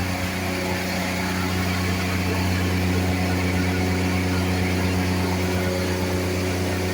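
Engine-driven Lincoln welding machine running at a steady speed, with the continuous crackling hiss of a stick-welding arc over it.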